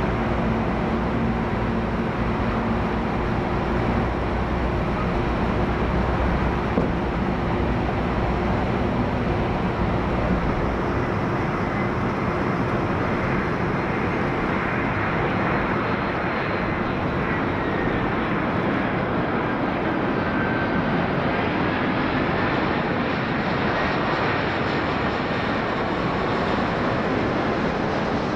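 Jet airliner engines: a distant jet's steady low rumble gives way, about ten seconds in, to the engines of a four-engine Airbus A340 on final approach with gear down, a steady rush with a faint high whine that dips and then climbs again.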